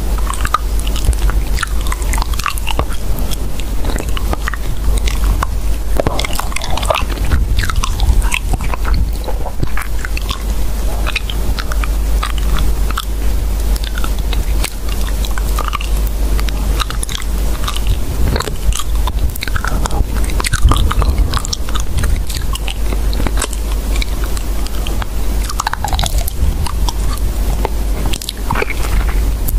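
Continuous close-up crunching and chewing noises, dense crackles and clicks without a break.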